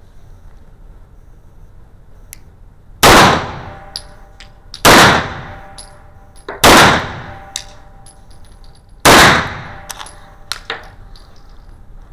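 Four semi-automatic pistol shots of slow aimed fire, spaced about two seconds apart, loud and echoing off the walls of an indoor range. Small metallic clinks follow the shots.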